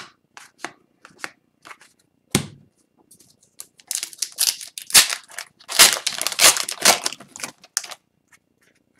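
Light scattered clicks of trading cards being handled, then from about four seconds in a dense run of crinkling and tearing as the foil wrapper of an Upper Deck hockey card pack is ripped open. The crinkling ends about eight seconds in.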